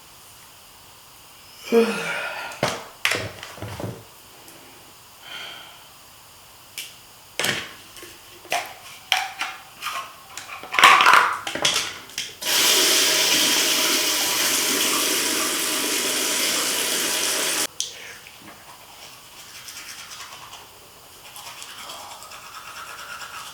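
A series of knocks and clatters, then water running hard for about five seconds, starting and stopping suddenly, with a fainter hiss afterwards.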